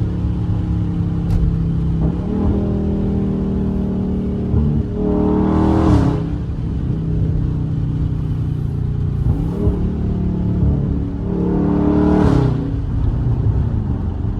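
Dodge Charger Scat Pack's 392 HEMI V8, fitted with a JLT cold air intake, cruising and then accelerating twice, the engine note rising to a peak about six seconds in and again near twelve seconds before dropping back.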